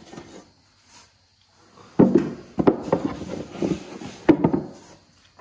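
Elephant calf's trunk rummaging through sliced sweet potatoes in a plastic feed tub: a quick run of knocks and clatters that starts about two seconds in and stops just before the end.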